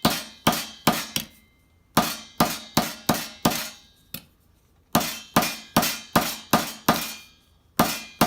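Hand hammer striking a metal armet piece in runs of ringing blows, about two to three a second with short pauses between runs. This is the edge of the plate being flared out to match its mating piece.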